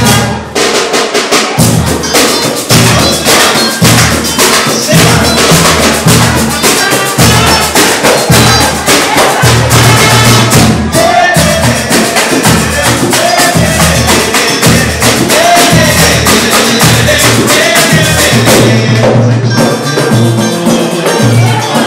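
Pagode band playing: a busy samba groove of tambourine-like hand percussion and drums over a pulsing bass beat.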